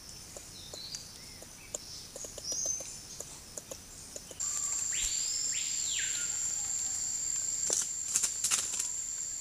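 Rainforest ambience: faint high bird chirps, then about halfway in a steady high-pitched insect drone starts and holds. Soon after, a single whistled call rises and falls over about a second. A few sharp taps, like rustles in dry leaf litter, come near the end.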